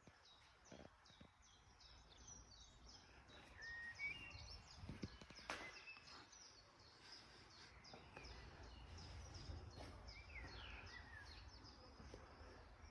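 Faint birds chirping: many short, high chirps and quick falling notes over a low background rumble, with one sharp click about five and a half seconds in.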